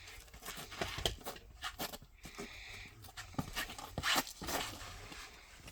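Scattered small clicks, knocks and rustling of a rimfire rifle and shooting gear being handled between shots, with a short scraping rush a little past two seconds in.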